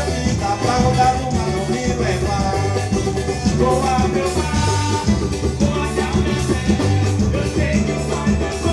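Upbeat Latin-style music with a steady beat and a bass line, in an instrumental stretch where no words are sung.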